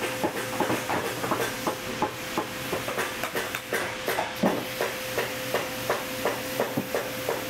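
Steady machine hum with regular sharp taps, about three a second, from boot-shop machinery at work.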